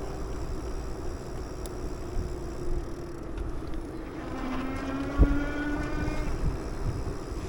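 Wind on the microphone and rolling rumble from riding a bicycle, with a steady low hum. About four seconds in a pitched humming tone with overtones comes in for about two seconds, and a sharp click sounds midway through it.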